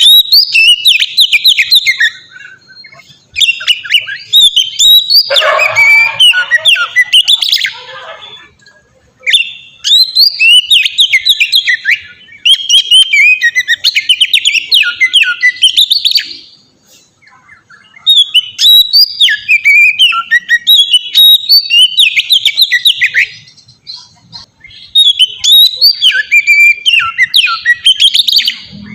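Oriental magpie-robin (kacer) singing loudly, a fast run of varied whistled and chirping notes. It comes in phrases of a few seconds with short pauses between them.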